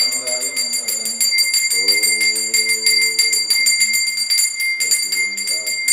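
A bell rung rapidly and continuously, about five strokes a second with a steady high ringing, over voices singing a chant in long held notes.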